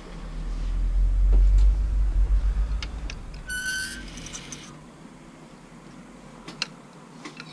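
Low rumble of camera handling noise on the microphone, loudest in the first couple of seconds, then a short high squeak and a few light clicks of hangers on a metal clothes rail.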